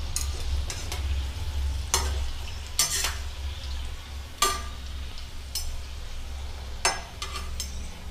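Gujiyas frying in hot oil in a kadhai with a steady sizzle, as they are scooped out with a wire-mesh skimmer and a steel spoon. Sharp metal clinks of spoon and skimmer against the pan come about two, three, four and a half and seven seconds in.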